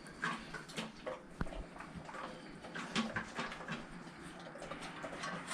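Rottweiler licking its food dish clean: a run of irregular short wet licks and clicks against the bowl.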